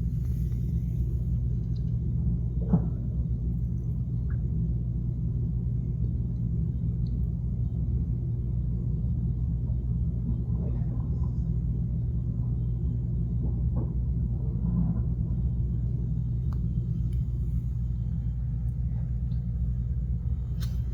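Steady low machine hum, with a few faint ticks and knocks over it.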